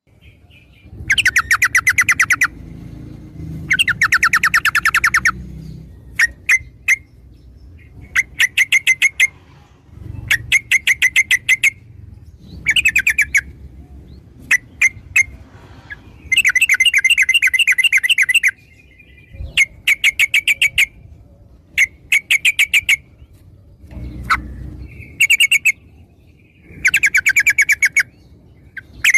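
Yellow-vented bulbul (trucuk) calling in repeated bursts of fast, rattling chattering notes, each burst lasting one to two seconds with short pauses between. These are lure calls used to coax a newly caught bulbul into calling.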